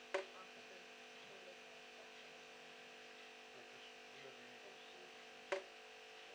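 A dripping tap: two single drops, each a short sharp plop with a brief ring, about five seconds apart, over a faint steady electrical hum.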